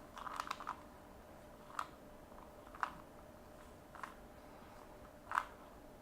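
Plastic Rubik's cube faces being turned by hand while the right–down corner-insertion algorithm is repeated. Faint clicks: a quick cluster at the start, then single clicks about once a second.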